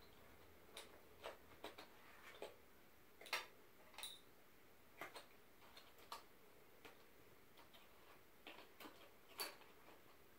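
Faint, irregular clicks and light knocks of wooden colored pencils against each other and the cardboard box as a small hand rummages in the box and pulls pencils out.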